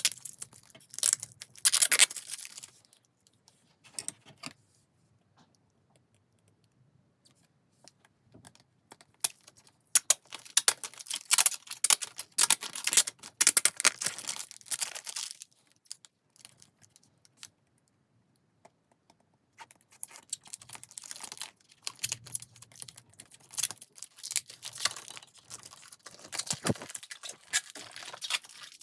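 Packaging being handled and opened: crackly plastic crinkling and tearing in several spells, with quiet pauses between them.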